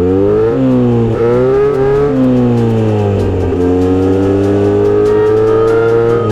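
Kawasaki Z900RS inline-four through a Misty Kintaro short aftermarket muffler, accelerating through the gears. The engine note climbs and drops back three or four times in quick succession with the shifts, then settles into a long, slowly rising pull.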